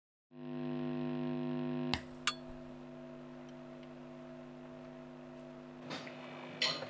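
Steady electrical mains hum, the buzz of an idle electric guitar amplifier in a recording studio, fading in quickly. A sharp click about two seconds in, after which the hum continues more quietly, then a small clink, and the first strokes of music come in near the end.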